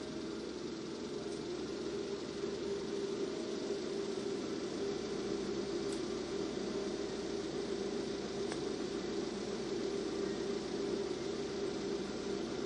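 Car engine idling steadily while stopped at a red light, heard from inside the cabin as a low, even hum.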